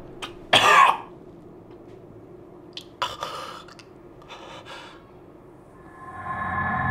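A man gasping and coughing in short, harsh bursts, three times, the first the loudest. An eerie music drone swells in near the end.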